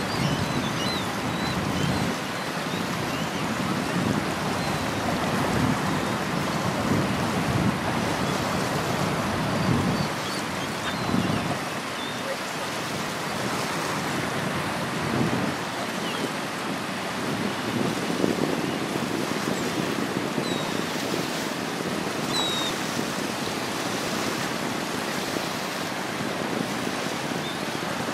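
River water lapping and splashing against a stone shoreline in swells, with wind buffeting the microphone.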